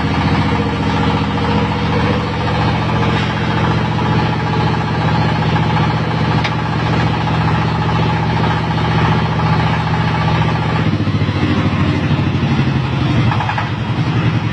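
FFC 45 disk mill grinder running with its drive motor, a steady mechanical drone. Its tone shifts about eleven seconds in.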